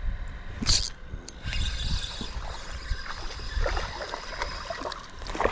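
A spinning reel cranked steadily to retrieve a lure, its gears whirring with fine rapid clicks, after a brief sharp swish about a second in. Low wind rumble on the microphone underneath.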